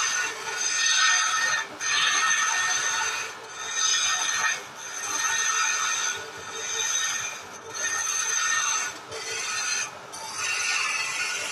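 Turning chisel cutting into a spinning wooden blank on a vertical wood lathe: a high-pitched scraping cut in repeated passes of one to two seconds each, with short breaks as the tool comes off the wood.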